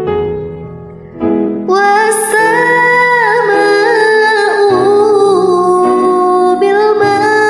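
A woman singing a slow Arabic-language devotional song over a soft instrumental backing track. After a quiet first second the voice comes in with long held, ornamented notes that waver in pitch.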